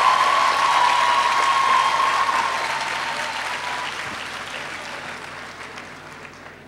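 Large audience applauding, the clapping dying away gradually. A steady high tone beneath it fades out about three seconds in.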